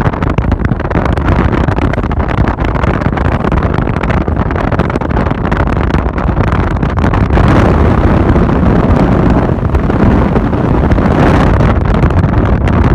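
Steady rush of wind and road noise from a moving car, heard from inside the car, getting louder a little past halfway.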